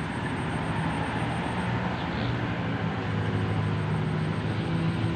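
A steady low mechanical hum over an even hiss, like a small motor running continuously.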